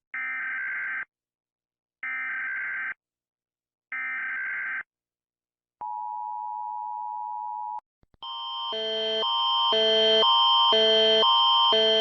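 Emergency Alert System alarm: three one-second bursts of screeching digital header tones about a second apart, the data that encodes the alert, then a steady single-pitched attention tone for about two seconds. About eight seconds in, a repeating electronic chime of alternating notes starts and swells louder.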